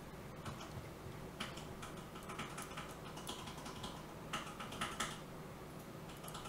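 Faint, irregular clicking and tapping of a computer keyboard and mouse, in short clusters that grow busier after about a second and a half.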